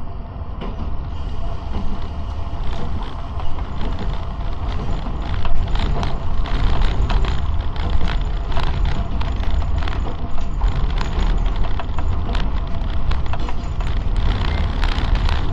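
Tram running along the track, heard from on board: a steady low rumble of wheels on rails with many short clicks and knocks, getting louder over the first couple of seconds as it picks up speed.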